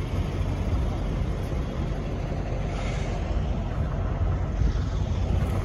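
Semi-truck's diesel engine running, a steady low rumble.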